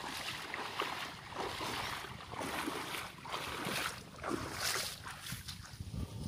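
A person wading through knee-deep floodwater, the water splashing and sloshing around the legs with each stride, easing off near the end.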